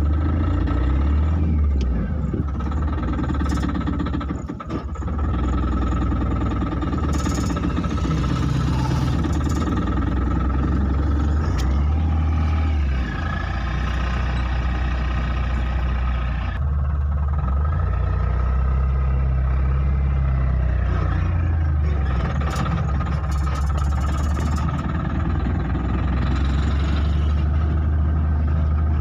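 Car driving along a road, heard from inside the cabin: a steady low engine and tyre rumble.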